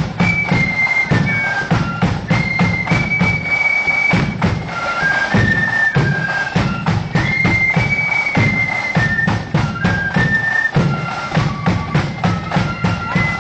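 Marching flute band playing a tune: flutes carry a high melody stepping up and down between held notes over a steady beat of bass drum and snare drums.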